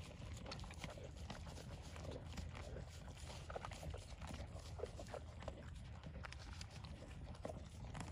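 Horses eating grain feed from a concrete trough: an irregular run of short crunches from chewing, along with muzzles working over the concrete.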